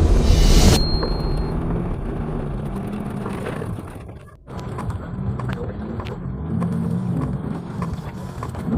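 Off-road vehicle engine running and changing pitch as it revs, with scattered knocks; background music cuts off about a second in and the sound drops out briefly about halfway through.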